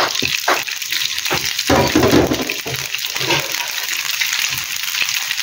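Sliced sausages sizzling in a little hot oil in a small non-stick frying pan, with a few knocks in the first two seconds as the pieces go in and settle.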